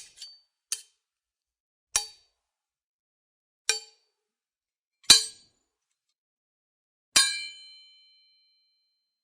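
Sword blades striking metal in a series of about six separate short clangs, one to two seconds apart. The last strike, about seven seconds in, rings on with a clear high metallic ring that fades over about a second.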